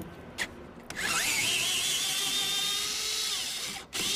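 Cordless drill-driver with a Torx T30 bit undoing a mirror mounting bolt in a car door: after a couple of clicks it spins up to a steady whine for about three seconds, stops briefly, then starts again near the end.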